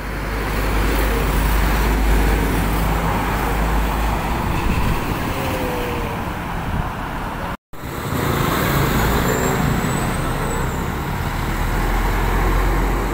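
Busy roadside traffic with cars and heavy trucks passing close by: engine and tyre noise and a steady low rumble. The sound drops out for a split second a little over halfway through.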